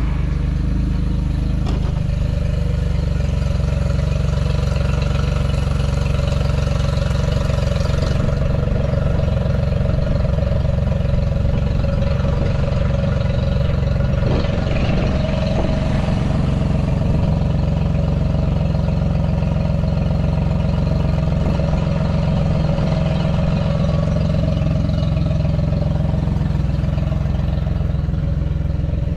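2003 Yamaha 40 hp four-stroke outboard motor running steadily on flushing muffs with its cowling off, with an added hiss over the first several seconds. This is a test run after a timing belt replacement.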